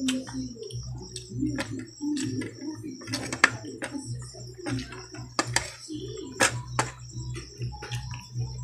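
Close-up eating sounds of grilled barbecue being eaten by hand: chewing and irregular wet lip-smacking clicks, a few sharp ones standing out. A steady high-pitched buzz and a low hum run underneath.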